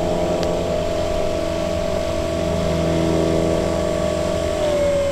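Radio-controlled model biplane's motor and propeller running steadily on the ground, the pitch dipping slightly near the end.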